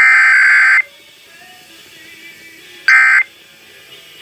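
NOAA Weather Radio SAME alert data, the harsh two-tone digital screech, played through a weather radio's speaker: a burst of just under a second at the start and a shorter one about three seconds in, with faint radio hiss between.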